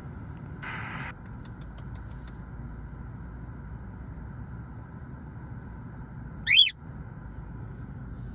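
Steady road noise inside a moving car's cabin, with one short, sharp squawk from a caged pet bird about six and a half seconds in.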